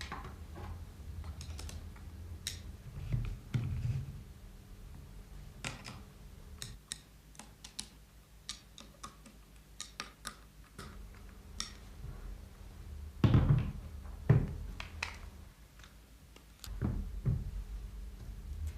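Irregular clicks and knocks of metal parts being handled and fitted together as grinding heads are assembled and adjusted on a portable valve grinder's driving head. A few heavier thunks come in, the loudest about two-thirds of the way in.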